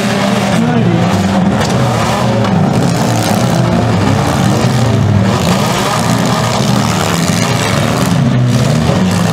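Engines of several compact demolition derby cars revving at once, their pitches rising and falling and overlapping over a steady wash of engine and exhaust noise.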